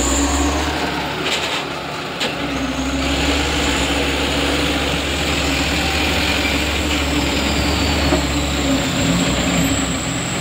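Truck engine running steadily with a low drone, the heavy vehicles working a steep muddy climb.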